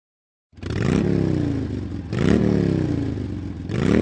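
Motorcycle engine revved three times, each blip of the throttle rising quickly and slowly winding back down; the third rev starts near the end.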